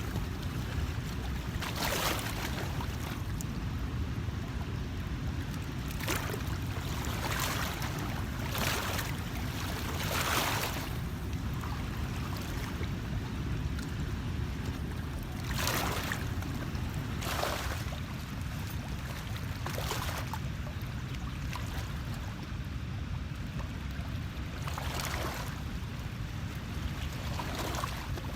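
Short water splashes or laps every one to three seconds over a steady low rumble.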